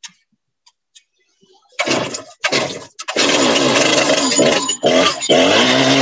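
Stihl MS 661 two-stroke chainsaw starting: two short bursts about two seconds in, then the engine catches about three seconds in and runs loudly, its pitch rising and falling as it is revved.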